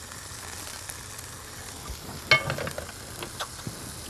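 Steady sizzling hiss of frying, with a short run of clinks and scrapes of a spatula against a skillet about two seconds in.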